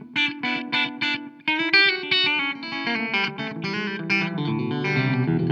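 Electric guitar played through an Old Blood Noise Endeavors Black Fountain oil can delay pedal set for a short slapback echo. A string of short picked notes comes first, then a busier run of notes about a second and a half in.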